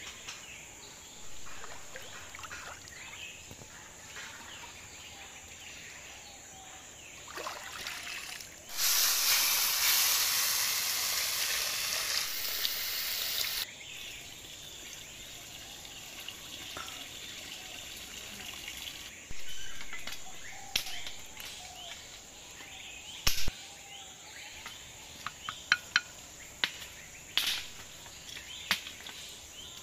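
Water pouring into a clay pot held under the surface of a pond, loud for about five seconds, with a shorter pour later. Near the end comes a series of sharp wooden knocks.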